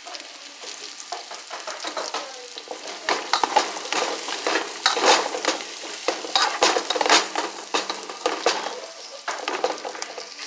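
Chicken sizzling in a hot frying pan while it is stirred, with a utensil clicking and scraping against the pan, busiest through the middle stretch.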